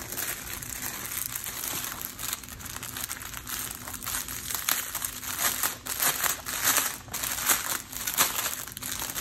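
Crinkly wrapping around a bundle of diamond painting drill bags, crackling irregularly as it is handled and pulled open by hand.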